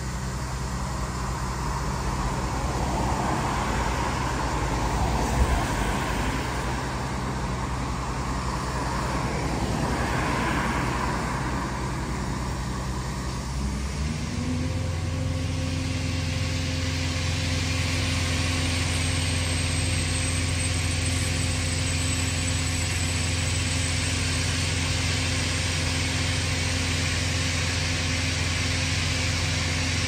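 Engine of heavy demolition machinery running steadily. About fourteen seconds in, the engine speeds up to a higher, steady note, and a hiss of working noise rises above it.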